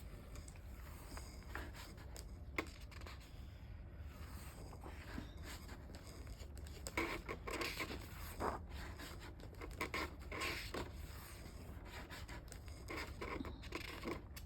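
Paper rustling and scraping in scattered bursts as a model kit's instruction booklet is handled and its pages turned, busier in the second half.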